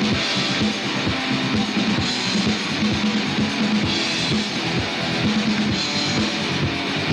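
Live rock band playing an instrumental passage with no vocals: strummed electric guitars over a steady drum beat.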